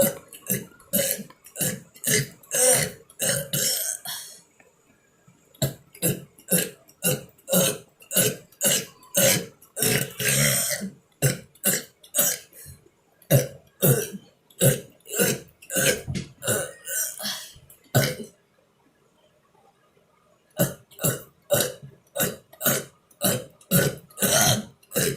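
A man burping over and over in quick succession, about two burps a second. The burps come in three runs, broken by short pauses about four seconds in and again around eighteen seconds.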